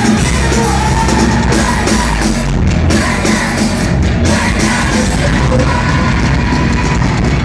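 Live rock band playing loud, with drums, distorted guitars and yelled, sung vocals, heard from inside the crowd through a phone's microphone.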